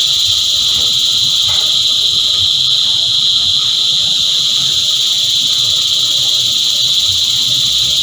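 A chorus of cicadas singing: one loud, steady, high-pitched drone that never breaks.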